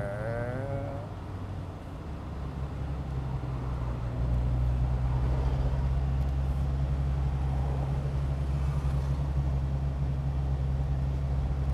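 Rolls-Royce Dawn convertible's V12 and road noise heard from the open-top cabin while driving in town: a steady low hum that grows louder about four seconds in as the car picks up speed.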